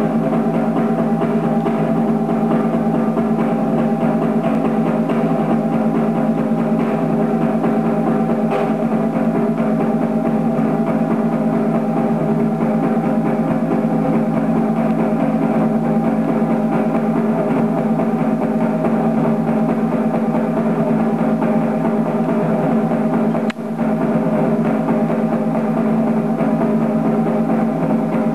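Drums beaten in a fast, continuous roll, loud and steady, with a brief drop about 23 seconds in.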